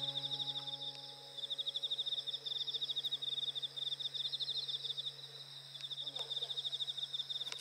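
Autumn night insects chirping: high, rapid pulsed trills in repeated trains, with brief pauses between them.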